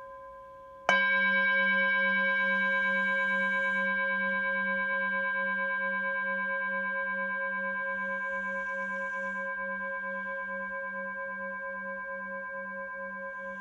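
Tibetan singing bowl struck once about a second in, then ringing on with several steady tones and a slow wavering beat, fading gradually. The faint ring of an earlier strike is still sounding before it.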